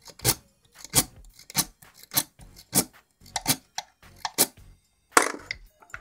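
Steel lock pick scraping in and out of the keyway of a euro profile cylinder lock, across its pins, under a tension wrench: a run of short scratchy metal strokes, about one every half-second to second.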